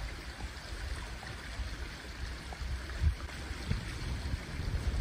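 Steady rushing of a small forest river in snowmelt flood.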